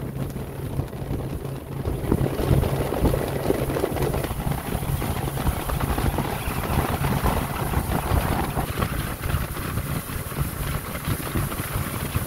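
A boat engine running steadily, with wind noise on the microphone; it gets a little louder about two seconds in.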